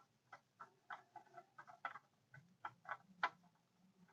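Faint, irregular light clicks and taps, about fifteen in four seconds, as a loosened oil filter is spun off by hand.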